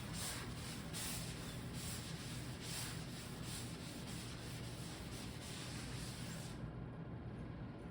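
An eraser rubbing across a board in repeated back-and-forth strokes, wiping off earlier work. The strokes are strongest in the first three seconds or so, then fainter.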